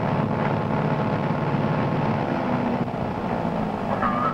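Light aircraft piston engine running steadily at run-up power of about 2100 RPM, heard from inside the cockpit during the pre-takeoff magneto check.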